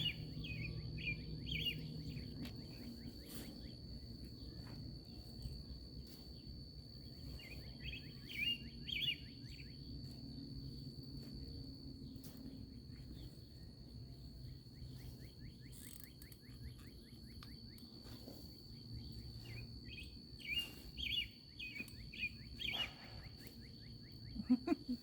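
Outdoor ambience: a bird chirping in quick runs of short notes a few times, over a steady high insect trill and a low rumble, with faint soft rustles of hands sifting through loose potting soil.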